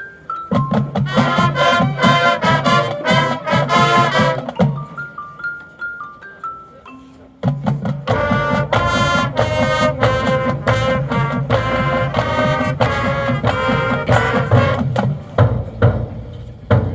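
High school marching band playing. A soft mallet-percussion melody alternates with loud full-band passages of brass over drums: one from about half a second in to nearly five seconds, and another from about seven and a half seconds to the end.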